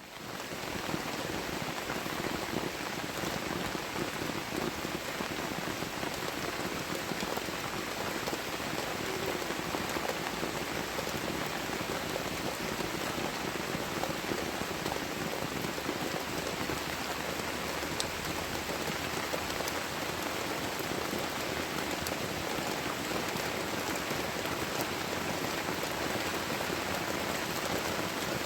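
Heavy tropical rain falling steadily, a dense, even patter of drops on surfaces, fading in over the first second.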